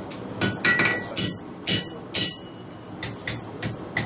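Hand hammer forging red-hot iron on an anvil: heavy blows about every half second, each with a short metallic ring, then lighter, quicker taps in the second half.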